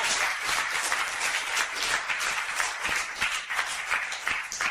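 Audience applauding the actors' bow at the end of a play: dense, steady clapping from many hands.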